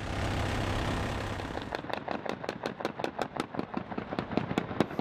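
Gunfire from a helicopter's door-mounted minigun: a steady dense burst for the first second and a half, then a rapid string of sharp cracks, about six a second.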